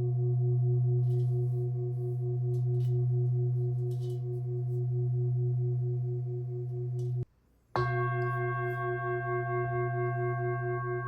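Large hand-hammered Nepalese singing bowl, tuned to B2, ringing with a deep hum and several higher overtones. About seven seconds in the sound cuts off, and after a brief silence the bowl sounds again with a sudden onset, its higher overtones brighter and its ring pulsing in a slow waver.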